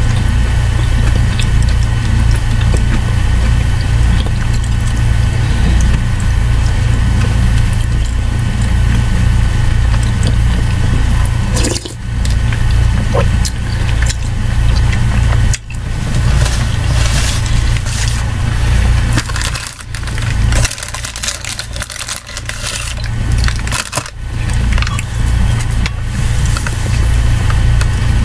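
Soup being spooned from a ceramic mug and eaten, with small clicks and mouth noises, over a loud, steady low hum that drops away briefly a few times in the second half.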